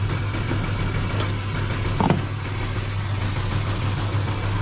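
Car engine idling steadily, a low even hum, with one short knock about two seconds in.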